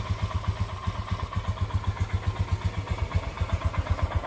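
Royal Enfield Himalayan's 411 cc air-cooled single-cylinder engine idling, with a steady, even beat of low exhaust thumps.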